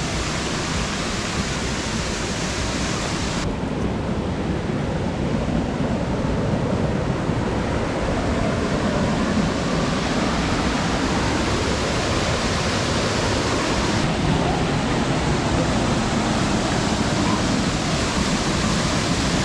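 Waterfall: a steady rush of falling water, its higher hiss dulling for several seconds in the middle.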